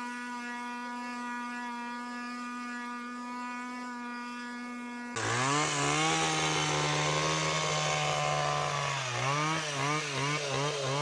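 Small two-stroke engines of vintage Stihl tools: a Stihl BG 61 blower running steadily at high speed. About five seconds in it cuts to a louder Stihl HS 60 hedge trimmer engine running under load, which near the end revs up and down several times in quick succession.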